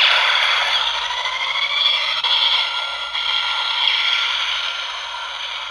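DX Attache Shotgun toy playing its electronic finisher blast effect through its small speaker. The noisy effect starts suddenly, has faint rising whines in it, and slowly fades out.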